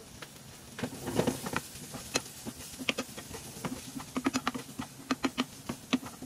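A wooden spoon stirring chopped onions and garlic in a non-stick frying pan, with a quick run of clicks, taps and scrapes against the pan starting about a second in.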